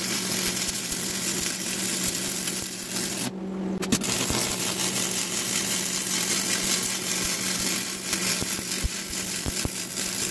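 Stick-welding arc from a Lincoln tombstone welder burning a 5/32-inch 6011 rod, a steady sizzle with scattered pops over a low hum, as it fills a large void in the joint. The sizzle drops out briefly about three seconds in, then resumes.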